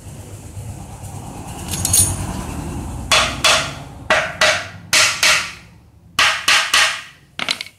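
Hammer blows on the shaft end of a D15 diesel engine: about ten sharp metallic strikes, mostly in quick pairs, starting about three seconds in. Before them, a rising rustle of tools being handled on the engine.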